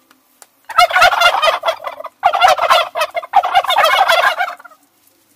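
Domestic turkeys gobbling close by: three loud gobbles in quick succession, each a second or more long.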